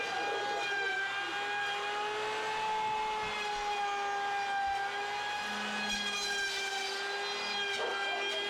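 Electric wood router running at full speed, a steady high whine with slight dips in pitch as the bit cuts along the wooden window ledge.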